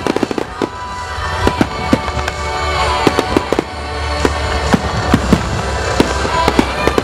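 Display fireworks bursting overhead, with a rapid, irregular run of sharp bangs and crackles, over music playing steadily underneath.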